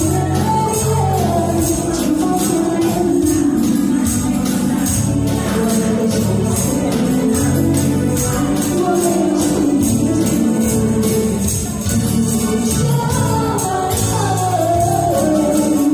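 A woman sings a slow pop song into a microphone over a recorded backing track played through PA speakers. A tambourine and shakers jingle along on the beat, with hand claps.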